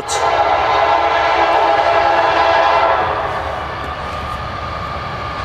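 CSX freight locomotive's air horn sounding a long blast, a chord of several steady notes that eases off about three seconds in, over the low rumble of the approaching train.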